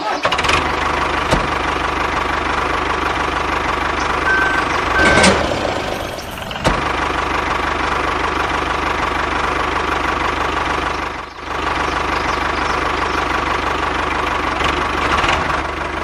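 An engine running steadily, with a couple of brief breaks.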